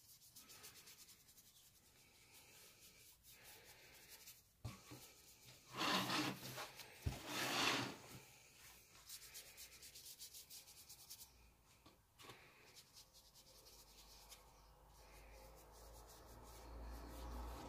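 Faint rubbing and scratching of a paintbrush working over sketchbook paper. Between about six and eight seconds in comes a louder scraping rustle with a knock or two, as the sketchbook is shifted on the board.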